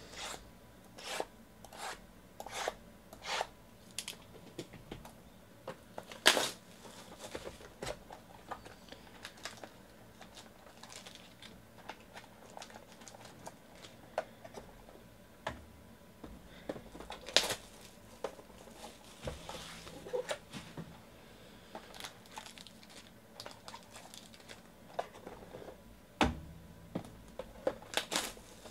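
Cardboard trading-card boxes handled and opened by hand: scattered taps, scrapes and crinkling, tearing of packaging, with two sharper, louder tears or knocks about 6 s and about 17 s in.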